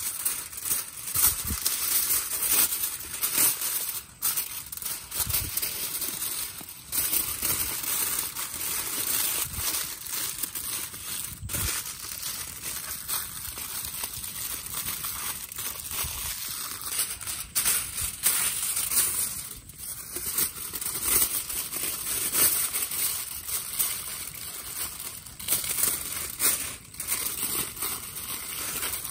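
Aluminium foil crinkling and crumpling as hands fold and wrap it into a food parcel, in irregular bursts of crackling rustle.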